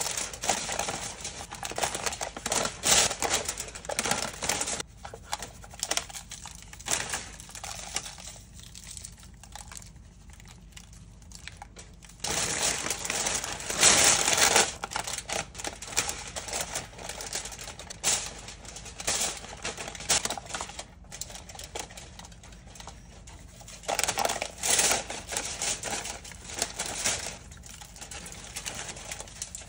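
Aluminium foil and paper crinkling and rustling in irregular bursts as hands handle a raw pork roast, with a quieter stretch in the middle.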